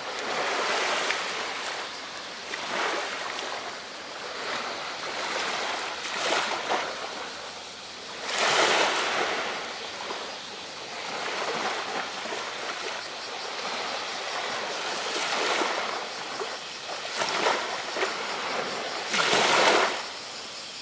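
Sea waves breaking and washing up the beach in repeated surges that swell and fade every few seconds. The largest surges come about eight and a half seconds in and near the end.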